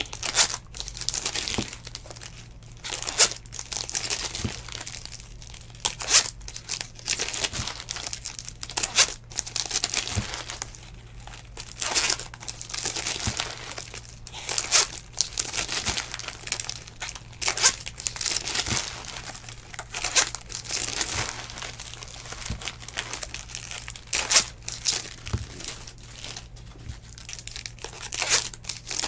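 Foil trading-card pack wrappers crinkling and tearing as they are peeled open by hand, in quick irregular crackles all the way through, over a faint steady low hum.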